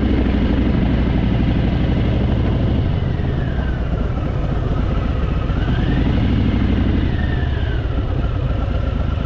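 Harley-Davidson Fat Boy's V-twin engine running steadily as the motorcycle rides along a track, with a faint higher whine that falls and rises a couple of times.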